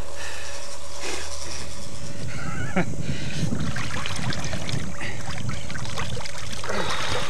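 Shallow river water sloshing and splashing as two men wade with a large wels catfish and heave it about in the water. A short honk-like call comes about three seconds in.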